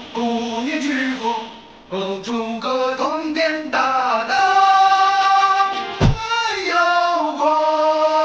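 Background music with a singing voice holding long, sliding notes, and a brief low thump about six seconds in.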